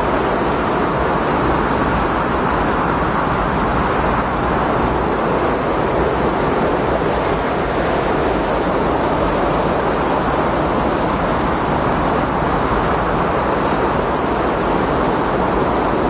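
Windstorm: a steady, even rush of wind noise with no gusts or breaks.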